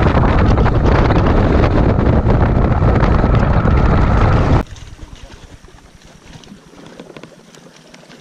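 Heavy wind buffeting the microphone on a bass boat running at speed, with the rush of the motor and hull on the water underneath. It cuts off abruptly a little over four and a half seconds in, leaving a much quieter faint background.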